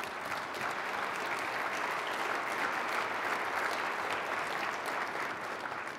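Large audience applauding in a steady round of clapping that fades away near the end.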